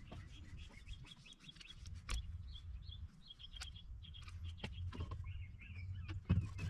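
Birds chirping over and over in the background, with a low steady rumble and a few sharp knocks, the loudest near the end.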